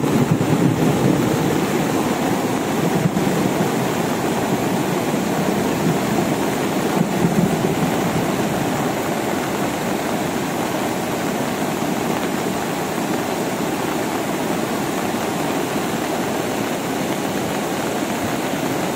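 Cold lahar from Semeru volcano: a muddy torrent of floodwater and volcanic debris rushing steadily down the river channel, a swelling flood.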